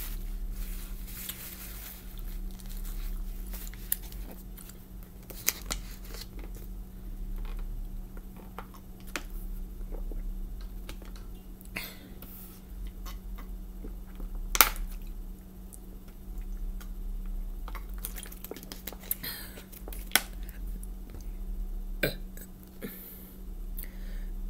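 Close-up eating sounds: a person chewing spaghetti, with wet mouth clicks and smacks, and a drink from a plastic water bottle partway through. A steady low hum runs underneath.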